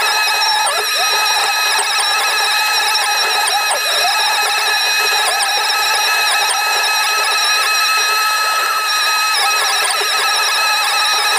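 Excavator-mounted forestry mulcher head and hydraulics running steadily with a high-pitched whine full of overtones, dipping briefly in pitch a few times.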